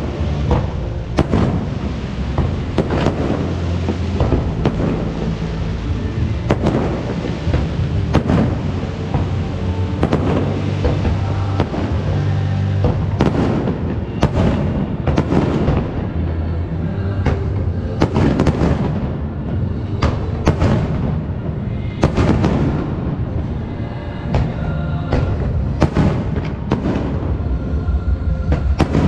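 Fireworks bursting in a rapid, irregular string of bangs and crackles, one or two a second, over loud show music with sustained low notes.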